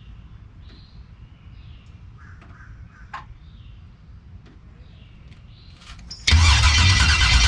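Faint bird chirps over outdoor background, then about six seconds in a car's new starter motor cranks the engine with a steady rhythmic churning that does not catch: a no-start.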